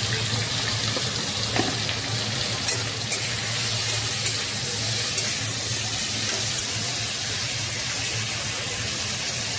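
Potato slices frying in hot oil in a kadai: a steady sizzle, with a few light clicks and scrapes of a metal spatula stirring them.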